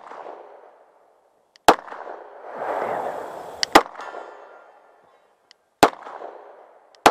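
Semi-automatic pistol firing four shots about two seconds apart, each crack followed by a fading echo across the range. A longer rush of noise swells and fades between the first two shots.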